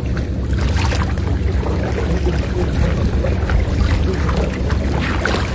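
A steady low rumble with scattered light splashes of small waves against the breakwater rocks.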